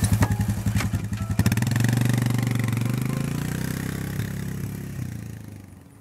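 Four-wheeler ATV engine running with a pulsing beat and a few sharp clacks, then pulling away about a second and a half in and fading steadily as it drives off.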